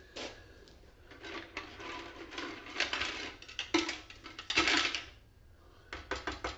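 Burnt copper wire handled in a plastic pitcher of vinegar and salt solution: small clicks and rustles of the wire against the plastic, a louder scraping sound just before five seconds in, then a quick run of clicks near the end.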